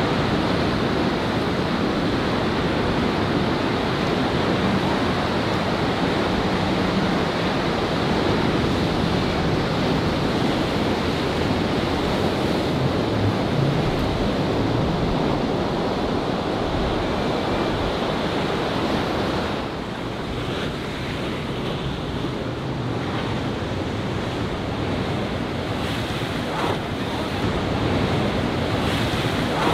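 Breaking surf and wind buffeting the microphone, with the low drone of a boat's outboard motor faintly under it.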